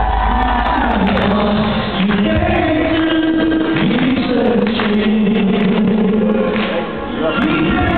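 A group of people singing together to backing music.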